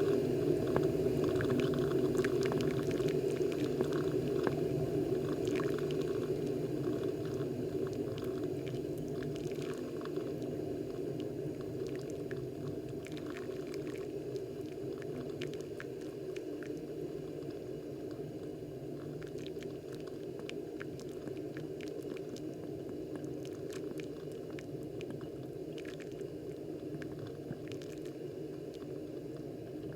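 Moccamaster KBGV Select drip coffee maker brewing: a steady bubbling and gurgling of water being heated and pushed up to the showerhead, with small crackles and drips onto the coffee bed. It grows slowly quieter over the first half and then holds steady.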